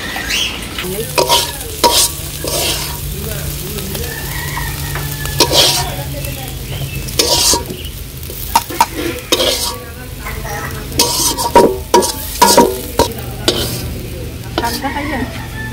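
Metal spatula scraping and knocking against an iron karahi in irregular strokes as a shredded vegetable fry is stirred and scooped out into a bowl.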